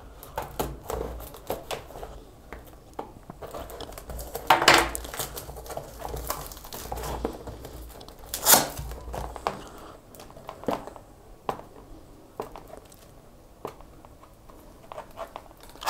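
A small cardboard box being slit open and unpacked: a blade cutting its seals, cardboard and packaging rustling and crinkling, and light taps from handling. Two louder scraping, tearing sounds come about 4.5 and 8.5 seconds in.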